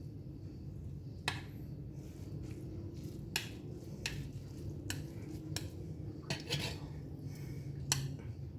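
A utensil clinking and scraping against a small bowl as fried rice is spooned and packed into it: a handful of sharp clinks spaced about a second apart, over a steady low hum.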